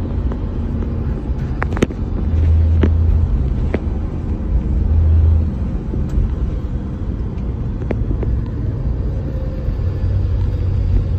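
Engine and road noise of an older manual car heard from inside the cabin while driving: a steady low rumble that swells twice, with a few sharp clicks.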